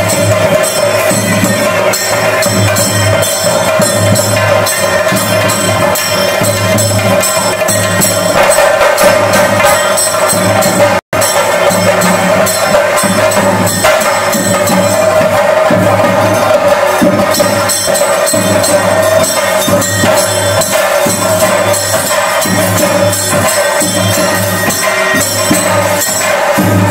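Loud ritual percussion accompanying a Muthappan Theyyam: rapid, continuous drumming over ringing, jingling cymbals, with one steady held tone running through. The sound cuts out for an instant about eleven seconds in.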